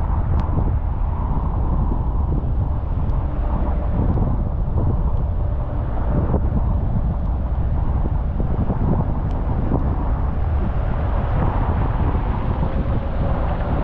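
Steady road and tyre noise from a car driving on rain-wet roads, with a constant low rumble.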